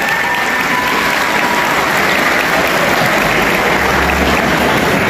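An audience in a hall applauding steadily, a dense even clapping.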